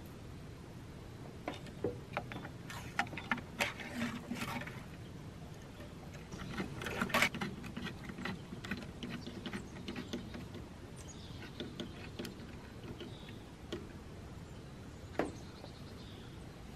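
Screwdriver turning the worm screw of stainless steel hose clamps: irregular metal clicks and short scrapes, thickest about seven seconds in.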